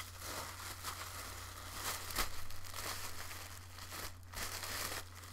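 Packaging crinkling and rustling in irregular bursts as candy packets are handled and unpacked.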